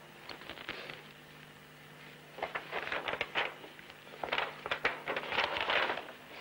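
Rustling and crinkling of a paper map being handled, in three bursts, the last and loudest near the end, over a faint steady low hum.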